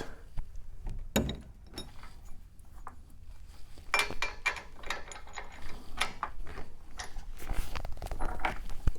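Scattered light metal clicks and clinks of small hardware being handled: the steel bolts and brass nuts of an exhaust pipe-to-manifold clamp being worked on and fitted.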